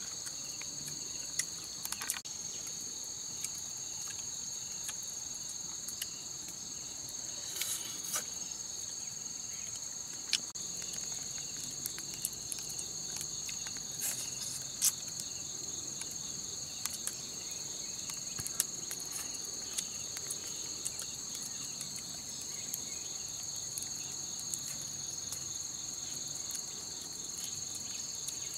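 A steady, high-pitched chorus of insects shrilling in the forest. Occasional faint clicks and taps sound over it.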